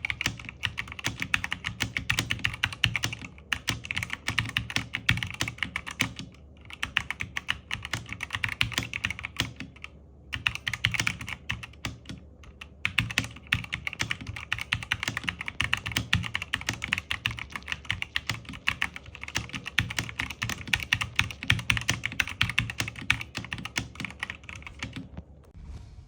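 Fast typing on a Zifriend KA646 mechanical keyboard: a dense, continuous run of key clacks, with a few brief pauses.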